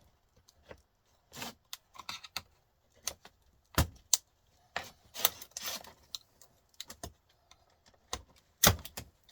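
Irregular clicks, clinks and clatters of small metal and plastic TV parts being handled during a teardown, with two sharper knocks, one about four seconds in and one near the end.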